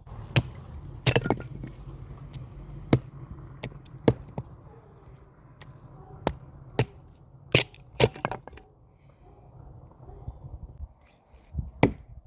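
A hatchet chopping wood: about a dozen sharp, irregularly spaced strikes, some with a cracking sound.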